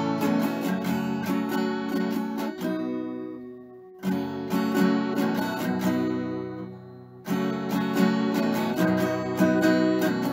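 Background music of a strummed acoustic guitar playing chords. Twice, a chord is left to ring and fade out before the strumming picks up again.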